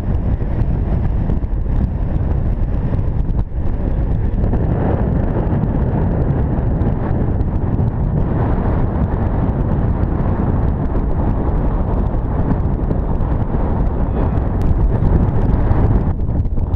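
Strong wind buffeting the microphone: a loud, steady low rumble with no engine tone.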